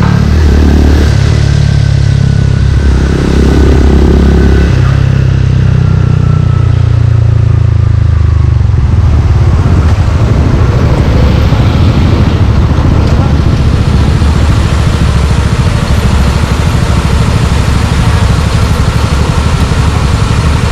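Suzuki Gixxer 155's single-cylinder four-stroke engine running loud while riding. The engine note changes pitch in steps several times in the first eight seconds or so, then settles into a steady low rumble.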